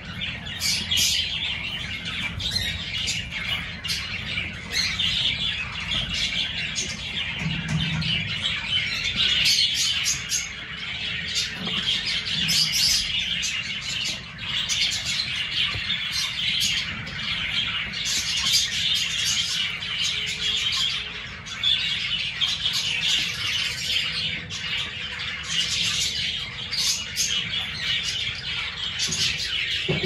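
A flock of cockatiels chirping and squawking in an aviary: a dense, continuous chatter of many overlapping calls.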